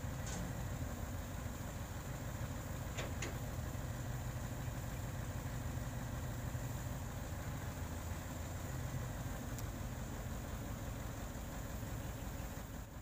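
Boom truck's engine running steadily to power the crane as it hoists the steel pipe sections. Two short clicks about three seconds in.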